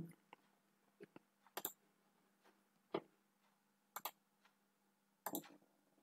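Near silence broken by about seven faint, short clicks at irregular intervals, some close together, over a faint steady hum.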